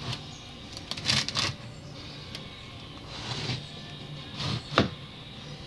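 Objects being handled and rummaged through: a few short scraping, rattling sounds and a sharp click near the end, over a steady low hum.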